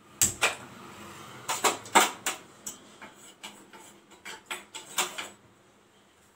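A gas stove burner being lit with a handheld spark lighter: about fifteen sharp clicks at an uneven pace, stopping a little after five seconds.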